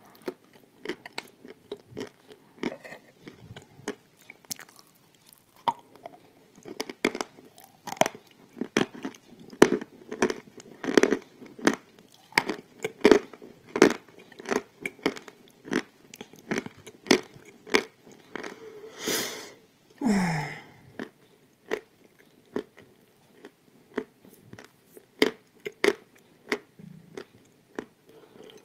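Close-miked biting and chewing of pressed Turkestan edible clay tiles: a quick run of sharp, dry crunches, several a second.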